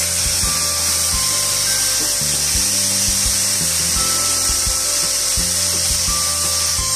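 Thin beef slices sizzling steadily in an oiled frying pan, with background music playing under it.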